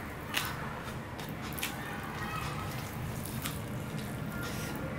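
Wet eating sounds from fingers mixing rice and curry on a steel plate and from chewing, with a few sharp wet clicks, over a steady low background hum.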